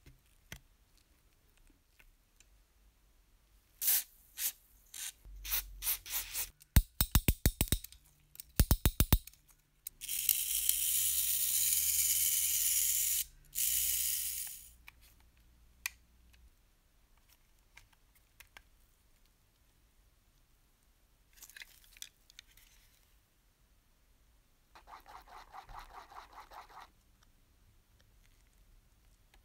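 Metal clicks on a workbench, then two short runs of rapid, even ticking from a toy locomotive's spring-driven clockwork motor. A steady spray hiss follows for about four seconds with a brief break, and there is a short rasping buzz near the end.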